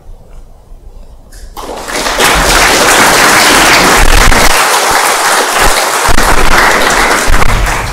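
Audience applauding in a large hall, starting faintly, swelling to full strength about a second and a half in, then falling away at the end.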